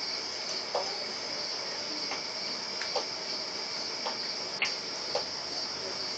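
Night crickets chirping in a steady high-pitched chorus, with a few faint scattered clicks.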